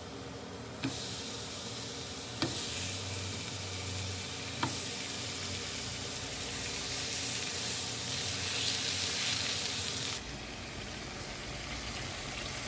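75/25 beef burger patties frying in a nonstick pan: a steady sizzle of fat, with three short sharp clicks in the first five seconds. The sizzle drops to a softer level about ten seconds in.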